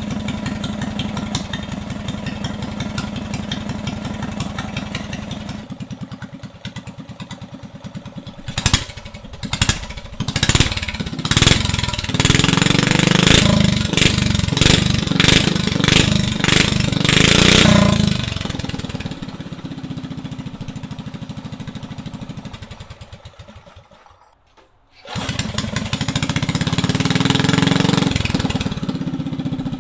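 A straight-piped 340 cc single-cylinder go-kart engine on a newly fitted 34 mm carburettor with stock jets, idling a little rough. From about 8 to 18 seconds in it is revved in a string of sharp throttle blips, the loudest part, then drops back. About a second of near silence comes around 24 seconds in, before it is heard running loud again and settling.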